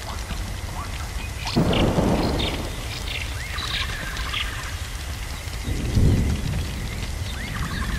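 Thunder rumbling twice, about a second and a half in and again around six seconds, over a steady crackling patter. Short, high, bird-like calls come between the two rumbles.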